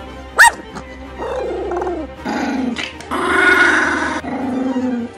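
A Pomeranian barks once sharply, then growls and grumbles in a run of four drawn-out, rasping noises, the loudest near the middle, in protest at having her paws trimmed.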